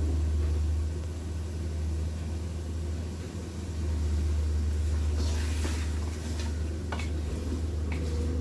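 Steady low hum of a kitchen range-hood fan. About five seconds in, a wooden spoon starts stirring the lamb curry in a metal pot: a brief hiss, then two sharp knocks of the spoon against the pot.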